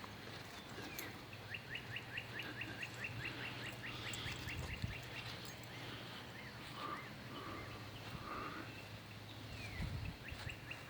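A bird trilling: a rapid run of short falling chirps lasting a few seconds, then a few softer notes, and the trill comes again near the end. Faint outdoor background with a low steady hum.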